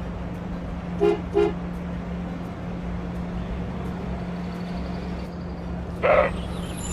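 Vehicle horn tooting twice in quick succession over a steady engine hum, then a louder single honk near the end.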